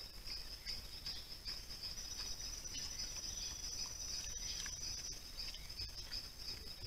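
Steady, high-pitched chorus of night insects, a continuous trilling, with faint scattered clicks beneath it.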